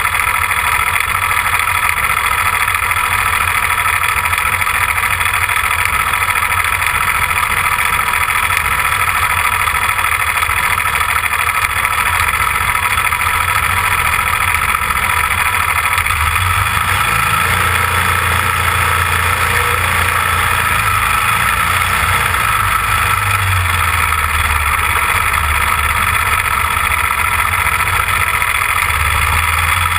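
Small race car's engine idling steadily, heard close up from the car itself, picking up a deeper low rumble from about halfway through.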